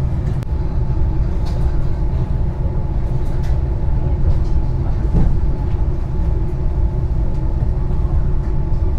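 Passenger train's steady low rumble with a constant hum, while it stands at the station platform.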